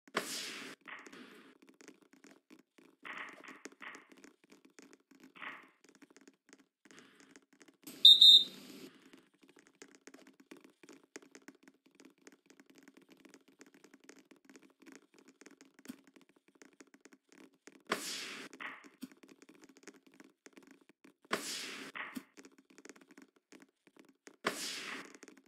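A volleyball being struck several times, sharp hits with a short echo, most of them in the last third. About eight seconds in comes a short, loud whistle blast of a referee's whistle, the loudest sound of the stretch.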